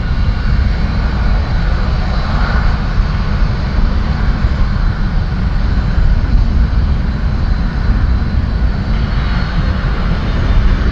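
Boeing 757's twin jet engines at takeoff thrust, a loud, steady low rumble as the airliner lifts off and climbs steeply away.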